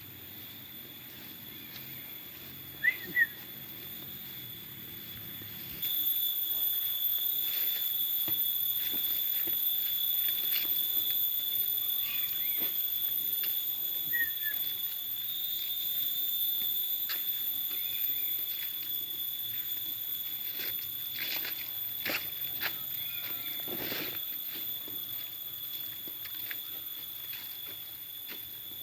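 A steady, high-pitched insect drone that gets louder about six seconds in, with a few short chirps over it.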